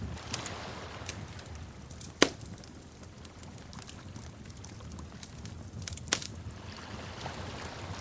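Wood fire crackling: a steady low sound of burning with scattered small crackles, and two sharp pops that stand out, one about two seconds in and one about six seconds in.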